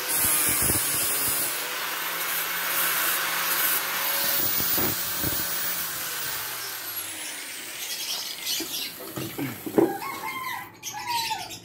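Electric angle grinder running on a welded steel square-tube joint, its high whine falling in pitch as it winds down around six to seven seconds in. After that come several metal knocks and clanks, the loudest near ten seconds in.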